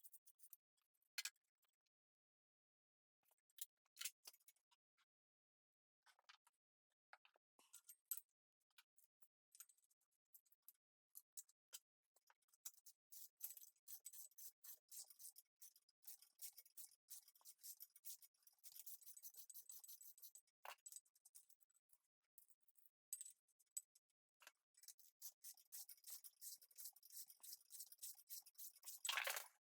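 Faint, rapid clicking of a hand ratchet wrench turning a bolt, in long runs through the second half, with scattered single clicks and taps before them.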